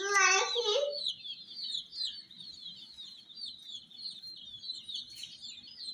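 A group of baby chicks peeping continuously, a dense stream of short, high, downward chirps. A louder, lower wavering call stands out in the first second.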